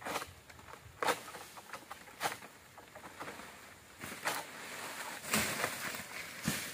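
Pole-mounted harvesting sickle (egrek) hacking at an oil palm, with sharp cutting strikes a second or more apart. Near the end comes a longer rustling crash of cut palm material falling, ending in a thud.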